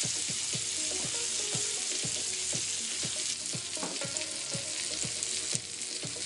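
Venison loins sizzling steadily in hot bacon fat in a skillet, searing on their first side.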